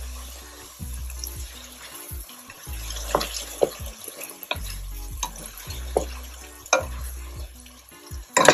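A spoon stirring rice in a pot, with repeated scrapes and knocks against the pot, a light sizzle from the liquid, and a louder clatter near the end. Soft background music with a low bass line plays underneath.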